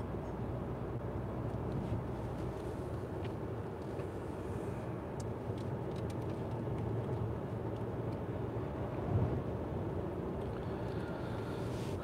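Steady low road and engine noise heard inside the cabin of an Audi Q5 cruising along a road, with a few faint clicks and a small bump about nine seconds in.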